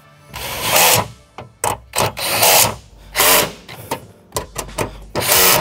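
Cordless power driver with a 10 mm socket running in a series of short bursts, each under a second, as it snugs down the bolts holding a battery bracket to its tray.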